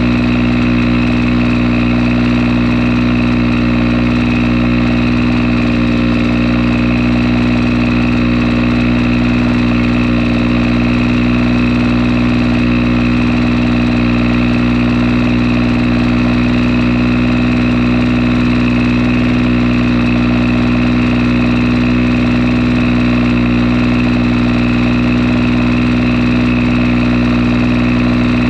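Fichtel & Sachs Stamo ST-204 single-cylinder two-stroke engine driving a generator, running steadily at an even speed during a test run.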